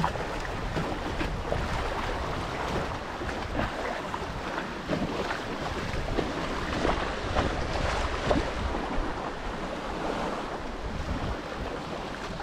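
Choppy lake water lapping and splashing close to the microphone, with wind buffeting the microphone.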